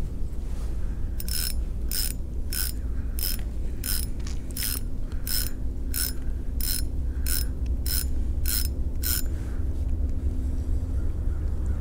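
Spinning fishing reel clicking at an even pace, about one and a half clicks a second, for some eight seconds, then stopping. A steady low rumble runs underneath.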